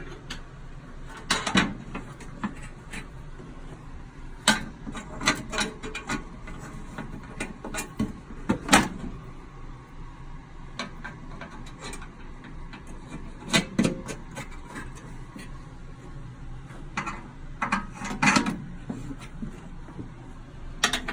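Scattered clicks and knocks of the restored Craftsman bandsaw's covers and metal parts being handled, a few at a time, with the loudest knock about nine seconds in.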